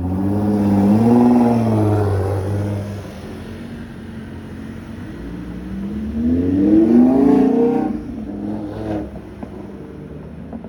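Car engines accelerating, two loud passes with the engine note climbing in pitch: one in the first three seconds, and a stronger one rising from about five seconds in and dropping away near eight seconds. Between and after them, steady traffic hum.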